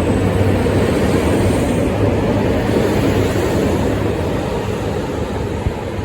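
KiHa 201 series diesel railcar in motion: a steady low engine drone mixed with wheel and rail noise, easing slightly toward the end.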